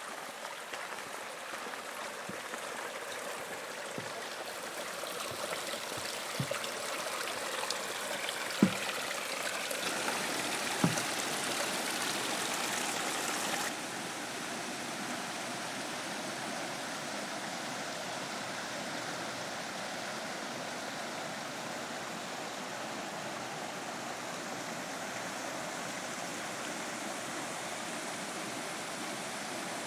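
Steady rush of creek water cascading down a small waterfall. It grows louder over the first dozen seconds, with a few sharp knocks around the middle, then shifts suddenly to a steadier, slightly softer rush.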